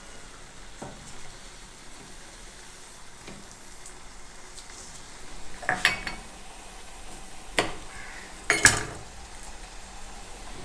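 Spoon scraping and clinking against a cooking pot as chickpeas are stirred into a frying masala, over a faint steady sizzle. A few louder clatters come in the second half.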